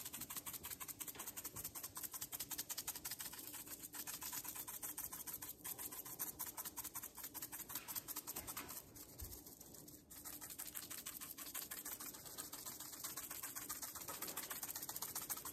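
A spice shaker of crushed red pepper shaken over meat in quick, steady strokes, the flakes rattling in the jar, with a short pause about nine seconds in.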